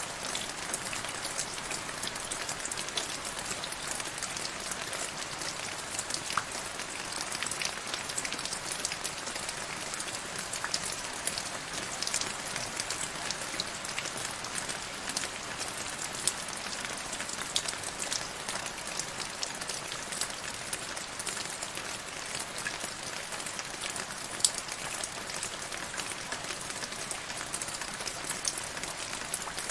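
Steady rain falling into a shallow puddle on grass: a constant hiss of rainfall dotted with many small drop and splash ticks, one drip standing out louder late on.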